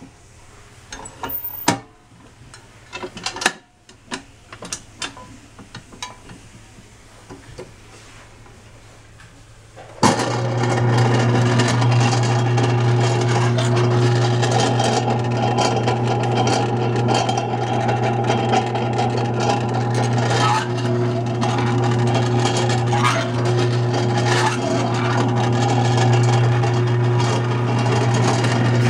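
Clicks and knocks of the grater disc and hinged hopper of a Royal SKS vegetable processor being handled, then about ten seconds in its electric motor switches on and runs steadily with a low hum, spinning the grater disc.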